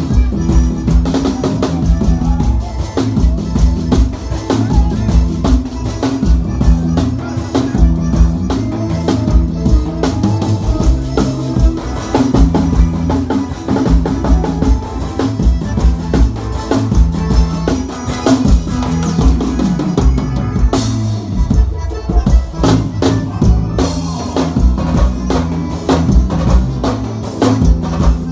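Live band playing an instrumental passage with a drum kit to the fore, bass drum, snare and rimshots in a steady beat under sustained instruments, with a short break about two-thirds through before the groove comes back.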